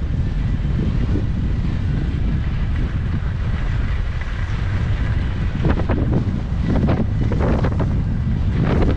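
Wind buffeting the microphone during a fast downhill ski run, a steady low rumble. Skis hiss on the packed snow, with a few short louder scrapes about six to seven seconds in and again near the end.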